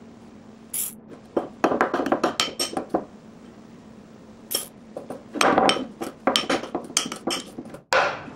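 Metal spoon stirring and scraping baking soda in a small glass bowl, in irregular bursts of scrapes and clinks against the glass as water is mixed in to make a packable paste.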